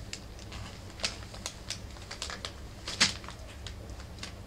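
Four-week-old rough collie puppies scuffling: irregular clicks and crinkles of paws and claws on newspaper and bedding, with the sharpest snap about three seconds in.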